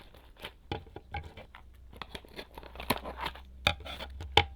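Packaging being unwrapped by hand, crinkling and tearing in irregular rustles and clicks, with the sharpest snaps near the end.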